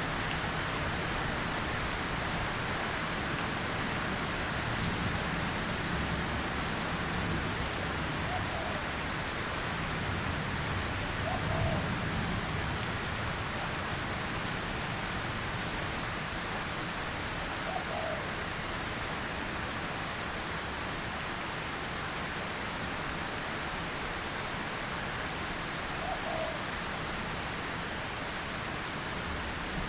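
Drizzle: light rain falling steadily, a dense even patter of small drops on a surface.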